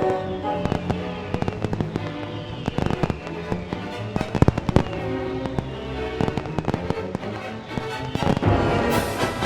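Fireworks bursting and crackling many times over orchestral-style music, with a few louder bangs in the middle and a dense flurry of bursts near the end.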